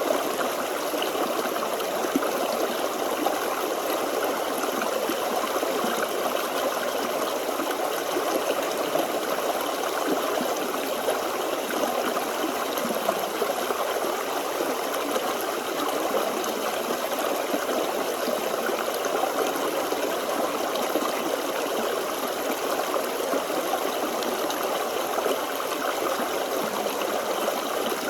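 Forest stream flowing over stones, a steady babbling and trickling of water.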